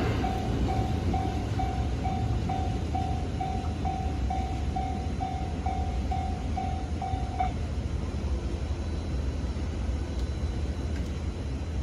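Japanese level crossing's warning bell ringing at about two strokes a second and stopping about seven and a half seconds in, over the low rumble of a JR West 323 series electric train running past.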